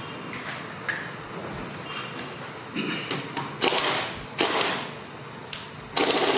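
Metal tools clicking and knocking on a car's suspension during removal of a shock absorber, with a few louder harsh bursts of noise and a loud sustained noise starting near the end.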